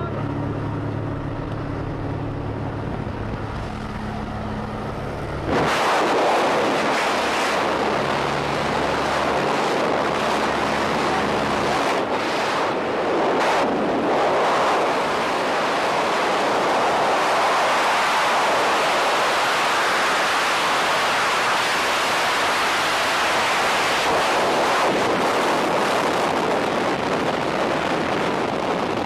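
Jump plane's engine droning steadily in the cabin, then about five seconds in a sudden loud rush of wind. The engine hum drops away about twelve seconds in, leaving only the steady rush of freefall wind on the helmet camera's microphone.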